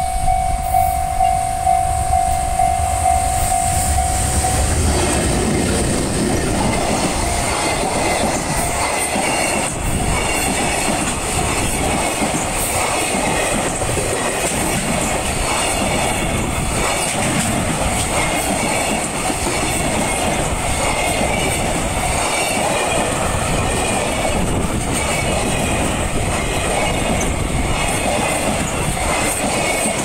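Level-crossing warning bell ringing for the first few seconds. Then a JR Freight container train hauled by an EH500 electric locomotive passes close by, its wheels clattering in a steady repeating rhythm as the long line of container wagons rolls past.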